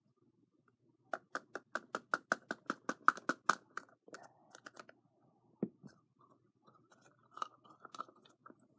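A quick, even run of about a dozen sharp clicks, then softer scattered clicks and crinkles, as small plastic things are handled.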